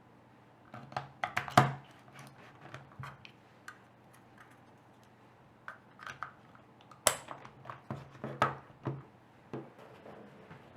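Small plastic clicks and knocks from handling a TV/DVD remote control: its casing and keys being fitted and pressed, in two flurries a few seconds apart.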